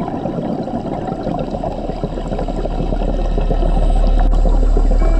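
Underwater gurgling and crackling water noise picked up by a diver's camera, with a deep low drone swelling in over the second half.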